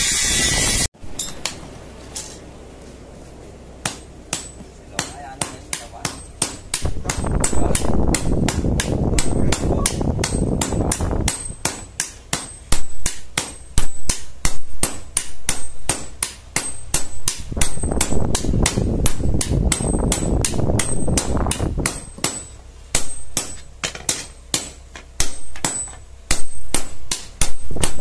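A steady machine noise cuts off about a second in. Then a blacksmith's hammer strikes steel on an anvil in a long run of steady, ringing blows, about three a second, as the blade of a tobacco-shredding machine is forged.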